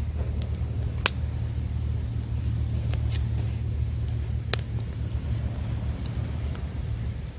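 Wood campfire crackling, with three sharp pops over a few seconds, above a steady low rumble.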